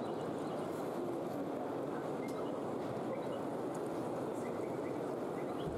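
Steady background hubbub of a large hall: an even, indistinct murmur, with a few faint short high chirps.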